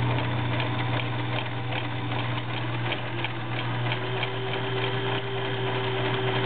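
Kenmore model 1703 sewing machine running steadily while sewing its built-in stretch stitch, the fabric fed forward and back. Its electric motor hums, with an even ticking from the needle mechanism, and a higher tone joins about four seconds in.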